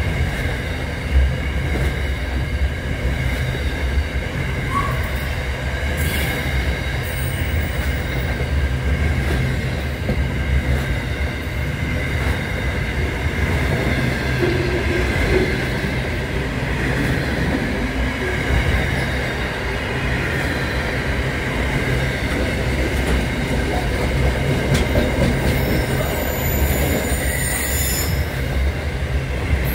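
Container freight train wagons rolling past close by: a steady low rumble of wheels on rail, with a continuous high-pitched wheel squeal over it.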